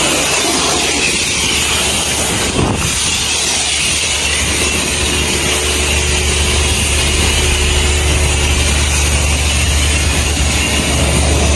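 Self-service jet wash lance on power rinse spraying high-pressure water onto a car: a steady hiss over a low hum, with one short click about two and a half seconds in.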